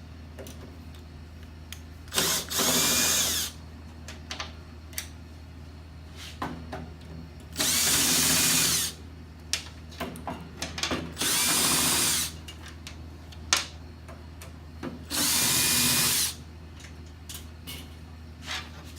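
Cordless power driver running four times in turn, about a second each, as it backs out the four Phillips-head bolts holding a grill tabletop. Light clicks and handling noises come between the runs.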